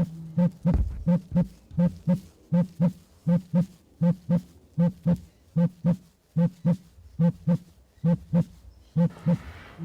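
Victoria crowned pigeons calling: short, deep hoots, mostly in quick pairs, repeating steadily. A brief low thud comes about a second in.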